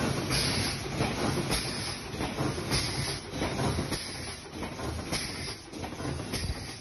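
Carton water filling and packing machine running: a continuous mechanical clatter with louder strokes roughly once a second, and a hiss over it.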